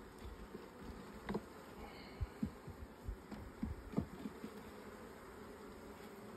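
Honeybees humming steadily over an open hive, with several light knocks of wooden hive frames being set back into the box.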